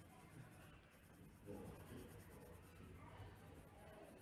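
Faint scratching of a coloured pencil shading on paper.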